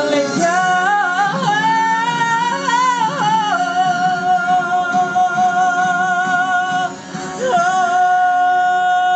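A man singing into a microphone over a quiet musical accompaniment, belting a melismatic run that bends up and down before holding a long high note with slight vibrato. The note breaks off about seven seconds in, and he takes up another long held note.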